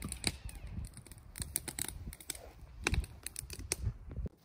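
Wood campfire crackling and popping in irregular sharp snaps, over a low rumble that cuts off shortly before the end.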